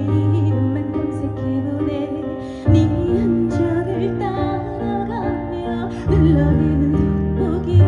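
A live trot song: a woman singing with vibrato over amplified accompaniment with a steady bass line.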